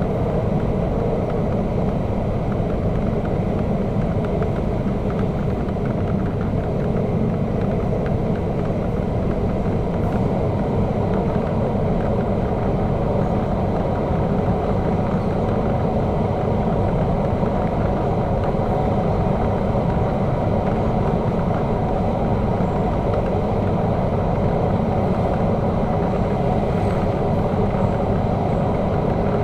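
MTR K-Train electric multiple unit running steadily at speed through the cross-harbour tunnel: an even, unbroken running noise of wheels on rails and traction equipment.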